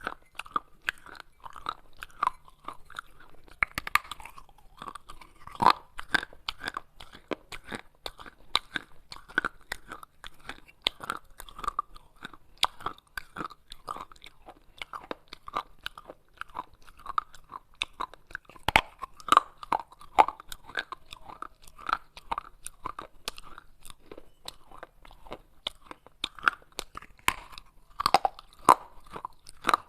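Close-up crunching and chewing of pieces of baked clay pot: sharp crackles over a steady chewing rhythm of about two crunches a second, with a few louder bites.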